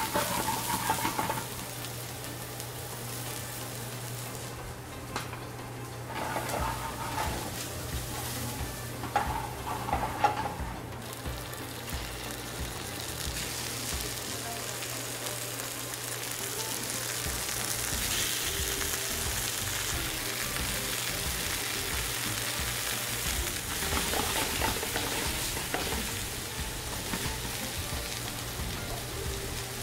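Onions and garlic sizzling in hot oil in a frying pan, then mahi-mahi fillets searing in it; the sizzle fills out and grows louder about a third of the way through. A steady low hum runs underneath.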